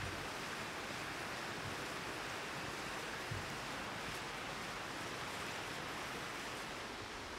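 Steady rushing, hissing water noise, with one faint low thump about three seconds in.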